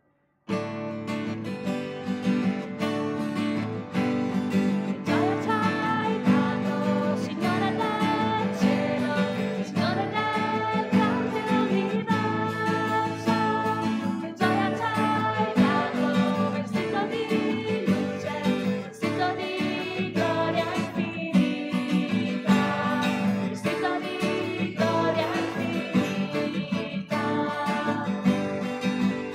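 A hymn sung with acoustic guitar accompaniment, starting suddenly about half a second in.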